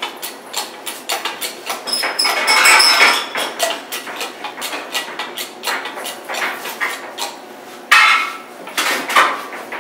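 A sheet of 1/4-inch steel plate being scooted into place across a plasma table's slats: steel scraping and clanking in a run of knocks, with a ringing scrape about two to three seconds in and a sudden loud clank about eight seconds in.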